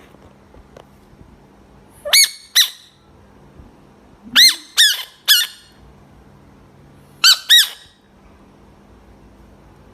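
Bullfrog giving short, loud, squawking calls, each rising and falling in pitch, in quick bursts of two or three: a pair, then three, then another pair.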